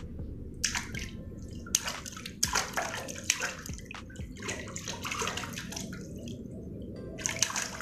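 A baby splashing water with her hands in a shallow plastic tub: irregular splashes and slaps, with a short lull about six seconds in before the splashing starts again.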